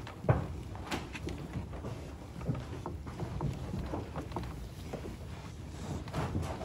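Icelandic sheep munching and pulling at loose hay, a dense, irregular crunching and rustling of chewed and tugged hay. A single sharp knock sounds about a third of a second in.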